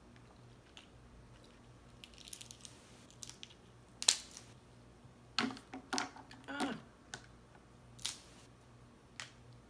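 Cooked crab leg shells being cracked and snapped open by hand: a run of sharp cracks and clicks, the loudest about four seconds in. A few short pitched sounds come in the middle.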